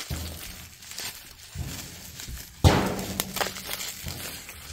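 Plastic bubble wrap being pulled and torn open by hand, crinkling, with a sudden louder crackle about two and a half seconds in.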